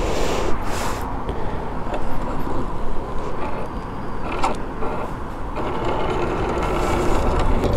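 A heavy Suzuki Hayabusa motorcycle being walked backwards by hand with its engine off: mechanical ticking and creaking from the rolling bike, under a steady rumble of wind on the microphone.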